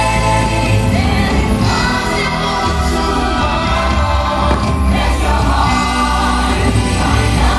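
Music with singing voices, held notes over a steady bass.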